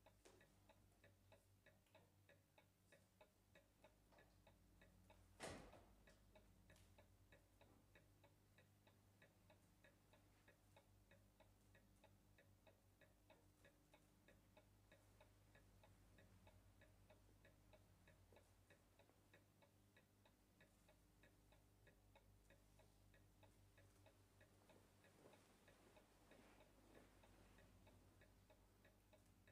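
Faint, steady ticking of a clock, with one sharp click about five and a half seconds in.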